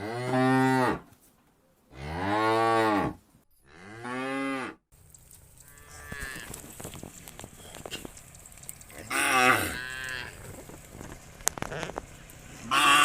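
Cows mooing: three loud, drawn-out moos in the first five seconds, each rising then falling in pitch. After an abrupt change to a faint steady background, a faint moo comes about six seconds in, a louder one near nine seconds, and another at the end.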